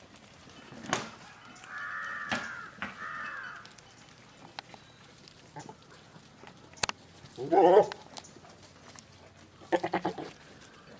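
Goats bleating: a loud, wavering bleat about seven and a half seconds in and a shorter quavering one near the end, after two higher arched calls two to three seconds in. A sharp click comes just before the loud bleat.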